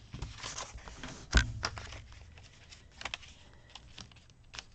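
Handling of a disc-bound paper planner: pages and plastic binding discs clicking as the spread is settled. A sharp click with a short thud about a second and a half in, then a few lighter ticks.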